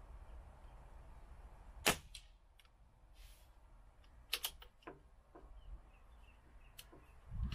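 BSA R10 SE pre-charged air rifle firing one shot through its shrouded barrel, a single sharp crack about two seconds in. It is followed by a scatter of lighter metallic clicks, a close pair among them a little past four seconds, as the side-lever action is worked.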